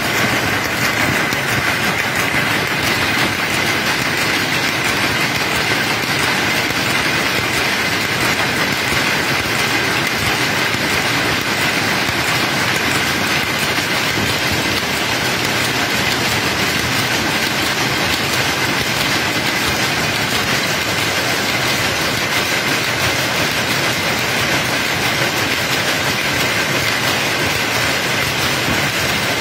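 Many power looms weaving cloth together in a weaving shed: a loud, steady, dense mechanical clatter, with a faint steady high tone running through it.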